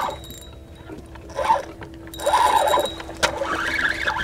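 Spinning reel being cranked to retrieve line, in several short bursts, over a steady low hum.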